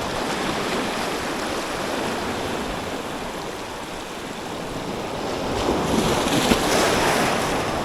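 Sea swells washing against shore rocks, with one wave surging in louder during the last couple of seconds.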